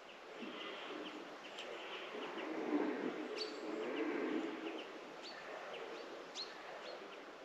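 Small birds chirping, with scattered short high calls that sweep quickly in pitch. Under them, through the middle, runs a low, drawn-out sound that is the loudest part.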